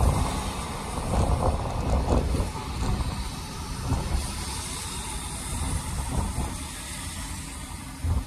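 Road noise inside a moving car: steady low rumble of tyres on a wet road with a hiss above it, louder in the first two seconds and then settling lower.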